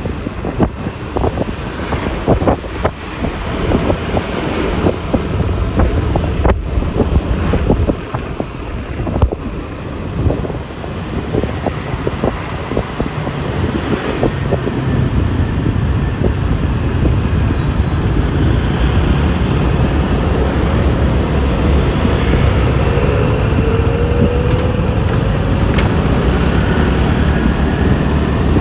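Wind buffeting the microphone on a moving Yamaha Lexi LX 155 scooter, over a steady low rumble of engine and road noise. It crackles and gusts unevenly for the first several seconds, then settles into a steadier, louder rush. A faint rising whine comes in about two-thirds of the way through.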